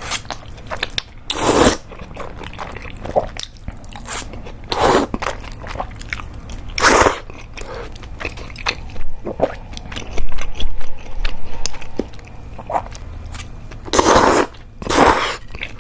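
Close-up eating sounds of mentaiko cream udon: several loud slurps of the noodles, two close together near the end, with wet chewing and small mouth clicks in between.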